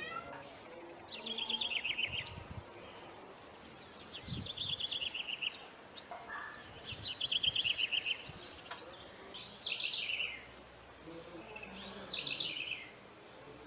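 A bird singing: five short, fast, high trilled phrases, each about a second long, a few seconds apart.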